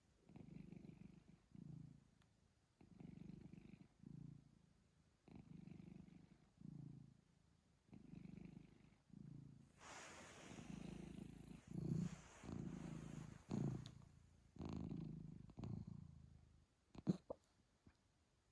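Domestic cat purring in even cycles, one per breath in and out. In the second half a rustling noise joins, and the purr is broken by a few sudden short jolts, hiccups, the sharpest about a second and a half before the end.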